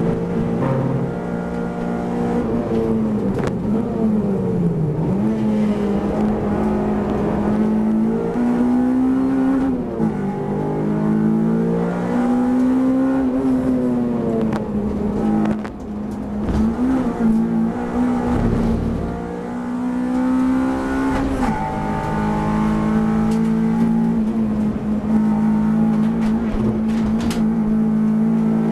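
Honda Civic race car's engine heard from inside the cabin at racing speed. Its note is held high for long stretches and dips and climbs back several times as the driver lifts, brakes and changes gear.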